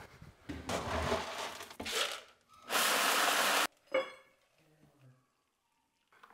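Kitchen food-preparation sounds: brief rustling, then a steady rushing noise for about a second that cuts off abruptly, followed by a single ringing clink of a utensil or dish.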